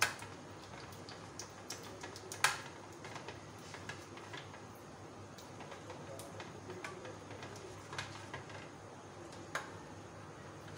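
Whisk beating melted vegetable ghee in a steel saucepan as it cools in ice water: irregular light ticks and clicks as the whisk knocks the side of the pan. There is a sharper knock about two and a half seconds in and another near the end.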